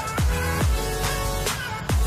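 Electronic background music: sustained synth chords over deep bass hits that drop sharply in pitch.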